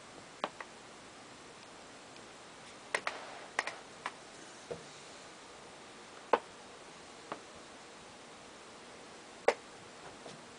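Scattered sharp clicks and light knocks at irregular intervals, over a low steady hiss: a quick cluster about three to four seconds in, with the loudest single clicks about six and a half and nine and a half seconds in.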